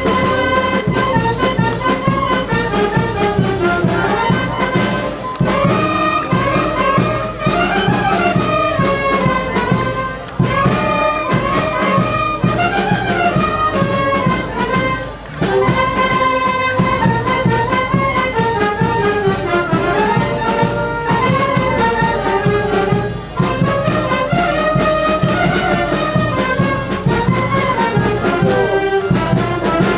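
Brass band playing a dance tune, with brass carrying a repeating melody that rises and falls over a steady beat.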